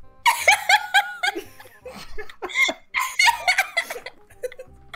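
Two girls laughing over a video chat, in three bouts, the first and longest right at the start.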